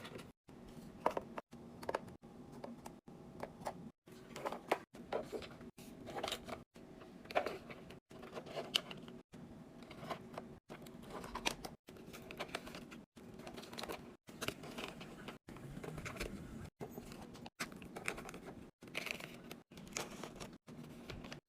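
Food packaging and containers being handled and set down while restocking a fridge: a string of short clicks, knocks and crinkles, broken every second or so by brief moments of dead silence.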